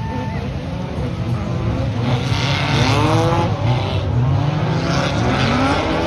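A pack of off-road racing buggies at full throttle on a dirt track, several engines running together. Their pitch climbs repeatedly as they rev up through the gears, loudest about halfway through.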